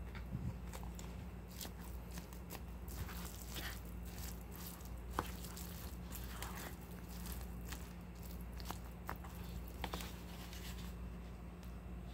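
A spoon mixing bibimbap in a bowl: irregular clicks of the spoon against the bowl and short soft scrapes through the sauced rice, stopping about eleven seconds in. A low steady hum runs underneath.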